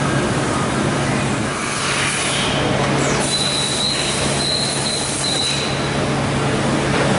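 Okuma MACTURN 30 CNC turning centre running, a steady machine hum under a wash of noise. A high, thin squeal comes in about three seconds in and sounds in three short stretches for a couple of seconds.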